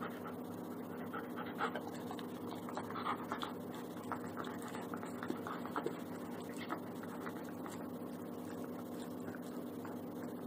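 A Belgian Malinois sucking and chewing on a plush stuffed toy: soft, irregular wet smacks and mouthing sounds, thinning out after about seven seconds, with some panting. A steady low hum runs underneath.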